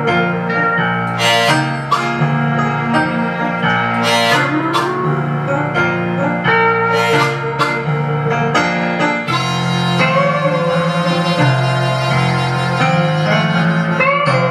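Blues harmonica played with bent notes over an archtop guitar accompaniment, with sharp rhythmic hits keeping the beat.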